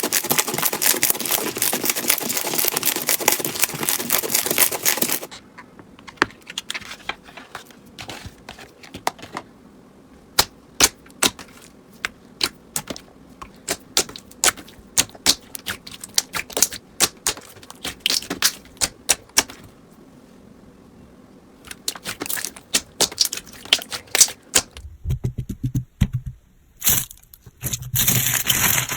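Slime being handled and squished: a dense run of crackling for about the first five seconds, then scattered sharp clicks and pops with quiet between them. Near the end a different, fuller squishing sound takes over.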